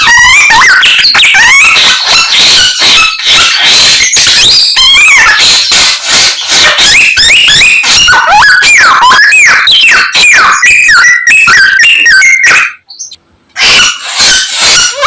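A samyong songbird singing a loud, dense mimicry song: rapid, varied whistles, sweeping notes and chatters strung together with almost no break, pausing briefly about 13 seconds in.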